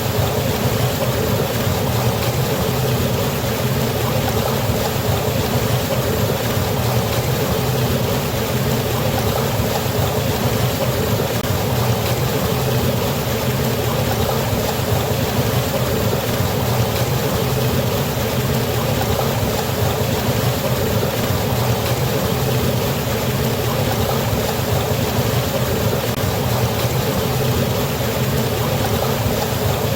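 Waterfall on a river: a steady, unbroken rush of falling water with a deep rumble underneath.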